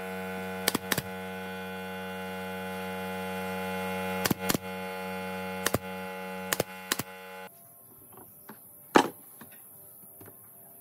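Pneumatic nail gun firing nails into wooden chair backrest slats: about eight sharp shots, mostly in quick pairs. Under them is a steady hum that cuts off abruptly about seven and a half seconds in.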